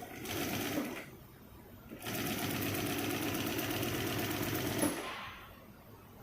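Direct-drive single-needle compound-feed industrial sewing machine stitching: a short burst of under a second, then a steady run of about three seconds with a fast, even stitch rhythm before it stops.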